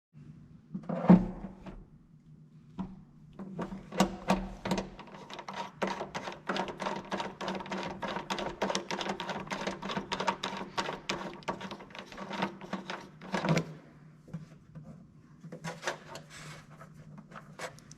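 Hand rivet nut gun at work setting M6 rivet nuts: a sharp knock about a second in, then a long run of rapid clicking from the tool's mechanism for about ten seconds, with a few more clicks near the end.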